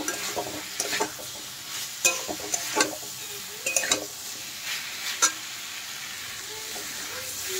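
A metal spatula scrapes and knocks against a metal kadai as fried potato and paneer chunks are stirred through thick masala, in irregular strokes about once a second. A low sizzle of the masala frying in oil runs underneath.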